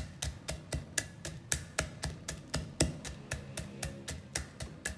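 Wooden pestle pounding peanuts in a wooden mortar: quick, even knocks, about four or five a second.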